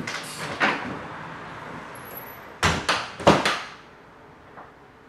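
Wooden front door opened and shut as someone leaves: a run of sharp knocks and clicks in the first second, then a louder cluster of knocks and a latch click about three seconds in as the door closes.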